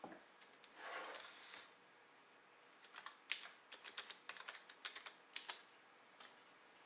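Computer keyboard keys tapped in a quick run of a dozen or so clicks as a password is typed at a login screen, with a soft rustle about a second in before the typing starts.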